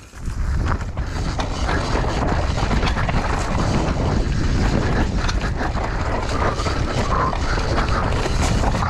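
Wind rushing over an action camera's microphone as a mountain bike descends a rocky dirt trail. Tyres crunch over dirt and stones, and the bike rattles with many small knocks. It rises within the first half second as the bike gets going, then stays steady.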